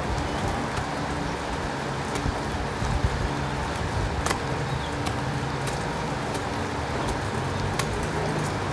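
Product separator (friction feeder) running steadily as it feeds tea-bag pouches out one at a time: an even motor and belt hum with a hiss, broken by scattered sharp clicks.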